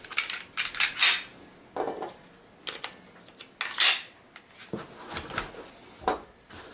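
Handling noise as a pistol is set into a hard gun case: scattered clicks, knocks and rubbing, the loudest about a second in and near four seconds in.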